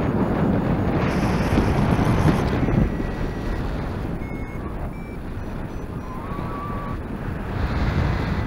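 Airflow rushing and buffeting over the microphone of a paraglider in flight, in gusts, loudest in the first couple of seconds and rising again near the end.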